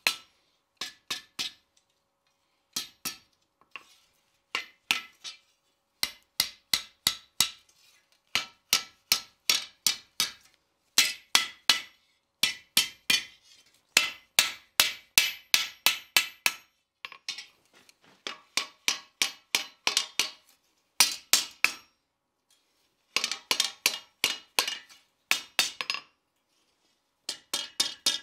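A light hand hammer strikes red-hot flat steel bar stock on an anvil, curling the bar's tapered end into a tight scroll. The blows come in runs of about three a second, with short pauses between the runs.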